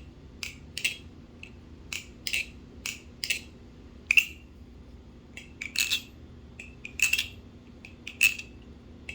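Marcolo C116 balisong (butterfly knife) being flipped, its freshly oiled pivots letting the handles swing freely: an irregular run of sharp metallic clicks and clacks as handles and latch strike the blade's tang pins, several with a brief ring.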